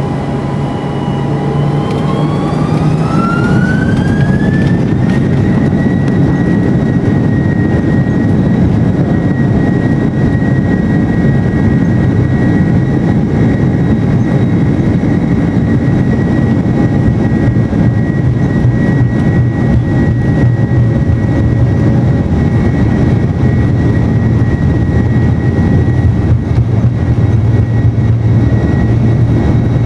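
Airbus A330-200's jet engines spooling up to takeoff power, heard from inside the cabin. A whine rises in pitch over a few seconds, about two seconds in, then holds steady over a loud, continuous rumble as the airliner accelerates down the runway on its takeoff roll.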